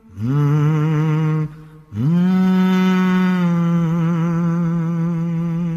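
A man's solo voice humming the closing notes of a Malayalam film song without accompaniment. He hums a short note that swoops up, then from about two seconds in a long note that swoops up and is held with a slight vibrato, dipping a little in pitch partway through.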